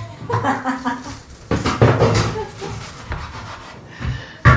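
People talking, with a sharp knock near the end.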